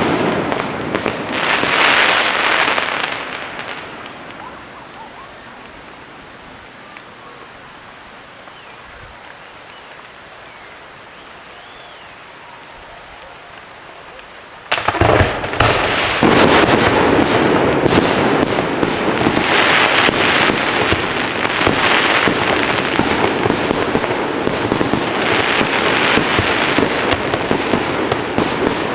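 Fireworks exploding: dense crackling bursts for the first few seconds that die away to a quieter lull, then a sudden loud bang about fifteen seconds in sets off a continuous barrage of bangs and crackle.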